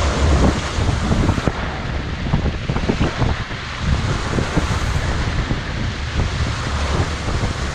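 Strong wind buffeting the microphone over the rush of rough seas around a sailboat, driven by 25 to 35 knot winds. A heavy low rumble with frequent crackling buffets runs throughout.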